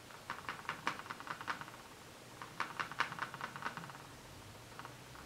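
Plastic drinking straw jabbed repeatedly into powdered cayenne pepper in a plastic container, packing the powder into the straw. It makes a rapid run of light clicks and taps, in two quick runs of about a second and a half each.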